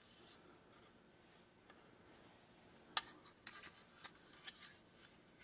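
Faint scraping of a metal pry tool working at the tabs of a badge on a tin-plate locomotive body, with one sharp click about three seconds in and short scratchy rasps after it.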